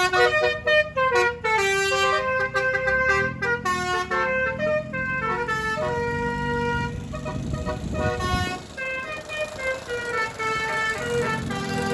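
Telolet horn on an angkot minibus playing a tune: a quick run of short notes, then longer held notes.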